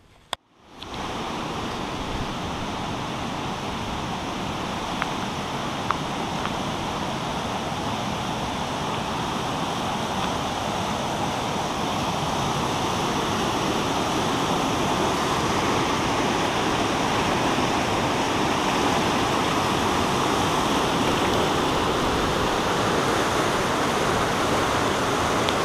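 River rapids rushing over rocks: a steady whitewater rush that fades in about a second in after a brief click, growing slightly louder through the rest.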